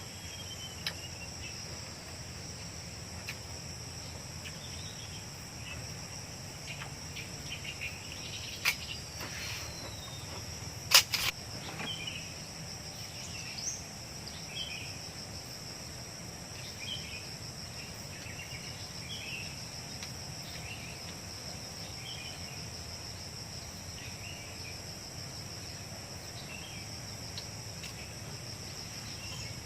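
Steady high-pitched drone of crickets and other insects, with short chirping calls repeating about once a second. A sharp knock comes about nine seconds in, and a louder double knock about two seconds later.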